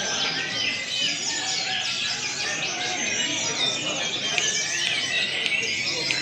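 Many sikatan rimba dada coklat (brown-chested jungle flycatchers) singing at once, a dense chorus of overlapping chirps, trills and whistled notes with no break, as at a songbird contest.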